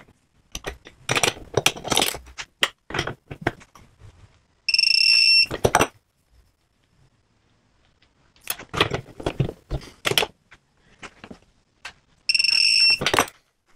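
A hand ratchet clicking in uneven runs as a bolt is tightened, then a digital torque meter giving a steady high beep of about a second as the set torque is reached. This happens twice, the second beep near the end.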